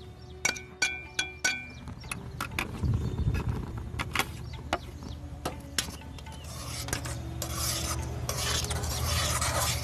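A spoon stirring and clinking in a pan of milk with turmeric and ginger, with scattered sharp clicks. A hiss builds up in the second half.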